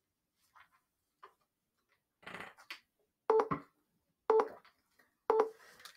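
Countdown timer beeping three times near the end, one short electronic beep a second, marking the last seconds before time runs out.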